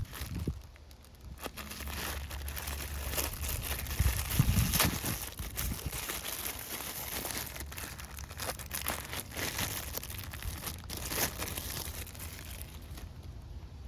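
Plastic packaging crinkling and tearing as a new lawn mower air filter is unwrapped and handled, with a dull knock about four seconds in.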